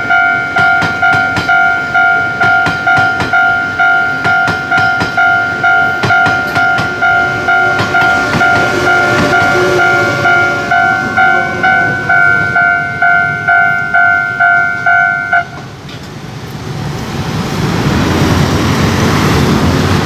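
Railway level-crossing warning bell ringing at a steady pulse of about one and a half strikes a second, over the clatter of a train's wheels passing on the track. The bell cuts off about 15 seconds in. Traffic noise then swells as scooters cross the wet road.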